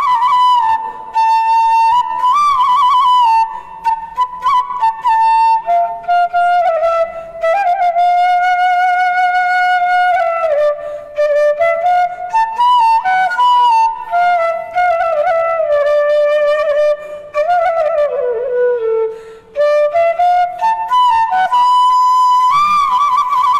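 Bansuri (bamboo transverse flute) playing a slow solo melody, one note at a time, in phrases with short breaths between them. There is a long held note with vibrato in the middle and a downward slide between notes near the end.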